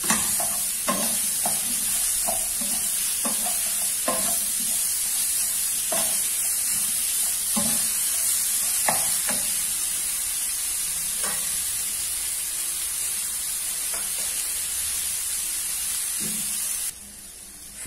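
Broccoli, carrot and yellow capsicum stir-frying in a frying pan: a steady sizzle, broken by irregular scrapes and knocks of a spatula against the pan every second or two. The sizzle cuts off about a second before the end.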